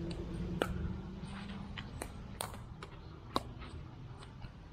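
A pickleball rally: a series of sharp pocks from paddles striking a plastic pickleball, the loudest about half a second in and again about three and a half seconds in, with fainter hits in between.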